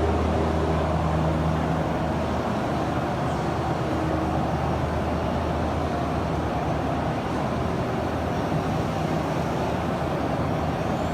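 Steady din of a machine tool exhibition hall: even background noise with a low machinery hum and a few held tones that fade in and out.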